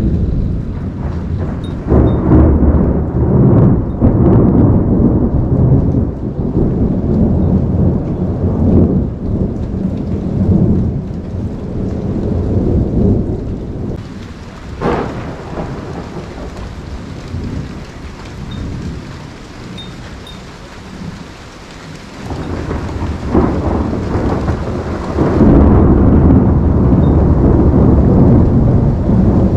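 Thunder of a tropical storm rumbling over steady rain. There is a sharp crack about halfway through, and the rumble eases off, then builds again loud near the end.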